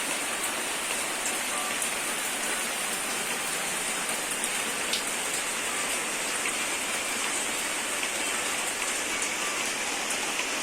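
Heavy rain falling steadily, a continuous even hiss with a few scattered drop ticks.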